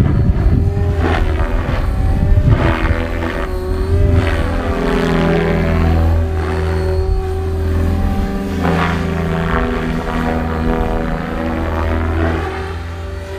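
XL Power XL550 RC helicopter flying 3D manoeuvres: a steady rotor-and-motor whine with repeated whooshing surges as the blades load up through the moves.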